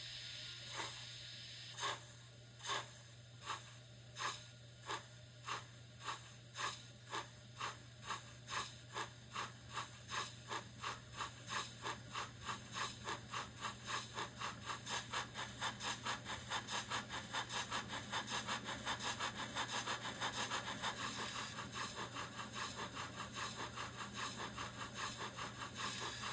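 Steam-locomotive chuffing from the digital sound decoder and small speaker box of a Fleischmann T3 model locomotive, over a faint steady hiss. The chuffs start about a second in, slow at first, and quicken steadily to about three a second as the engine runs up on the rollers. They grow a little softer over the last few seconds.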